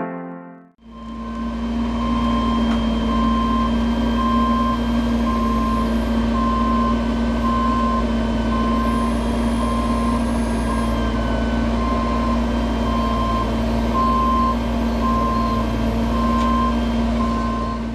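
Truck engine running steadily with a reversing alarm beeping about once a second: the truck is backing up.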